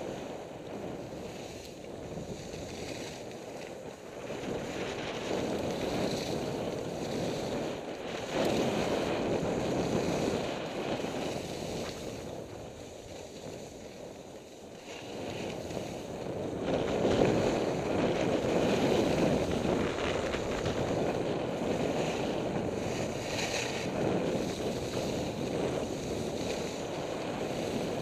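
Wind rushing over the microphone of a skier going downhill, mixed with the hiss of skis sliding over groomed snow; the rush swells and eases several times.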